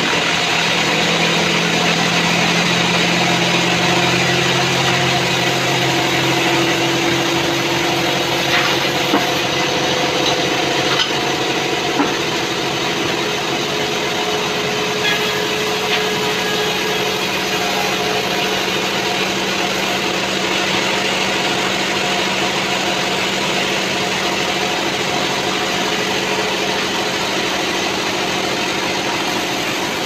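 Band sawmill running steadily as it saws mahogany logs, a constant machine hum under the blade's cutting noise, with a few sharp knocks between about eight and twelve seconds in.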